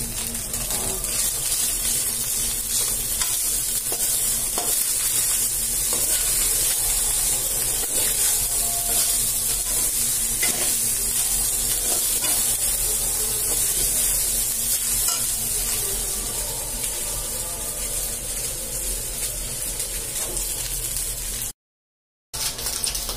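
Fried brown rice with scrambled egg sizzling in an aluminium wok, stirred and scraped with a metal spoon. The sound cuts out for under a second near the end.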